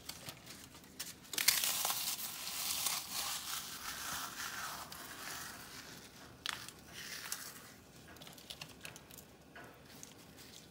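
Ritz crackers being crushed and crumbled by hand over a casserole: dense crunching crackle that starts sharply about a second and a half in, with a short burst later and fainter crumbling near the end.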